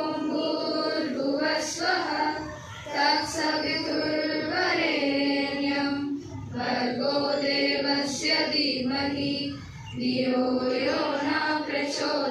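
Group of schoolgirls singing a slow prayer song together in unison, holding long notes, with short breaks between phrases.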